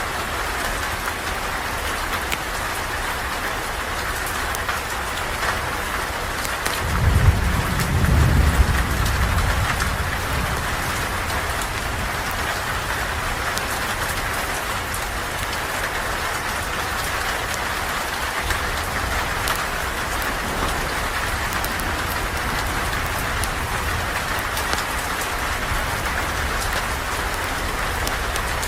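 Steady rain falling, with a low rumble of thunder about seven seconds in that swells and fades over about three seconds.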